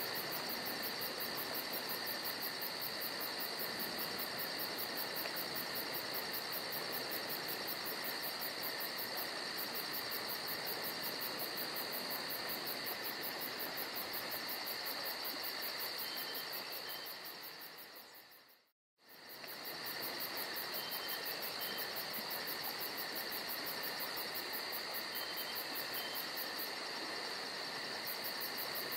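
Insect chorus: a steady high-pitched drone of several pitches, with a fast, even pulsing in the highest layer. About two-thirds through, the sound fades away to silence and comes straight back within about a second.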